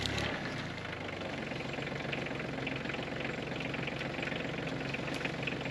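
Kubota compact tractor's diesel engine running as the front loader bucket pushes a stump pile together. Its heavy low sound drops off a moment in, and then it runs steadily.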